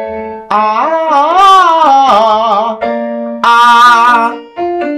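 A man's voice singing a vocal exercise pattern on a vowel over held piano chords, in two phrases: a longer one that rises and falls, then a shorter one. The vowel is kept in a narrow, thin placement.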